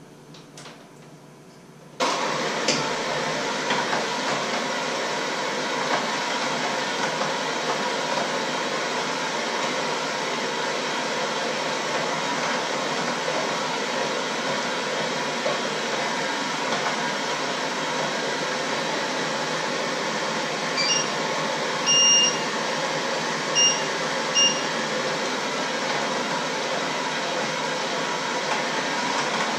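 Handheld electric mixer switched on about two seconds in and running steadily while it beats a mixture in a steel bowl. A few short electronic beeps sound about two-thirds of the way through.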